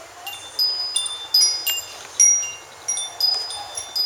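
Wind chimes ringing: many metal strikes at several different pitches in quick, irregular succession, each note ringing on and fading.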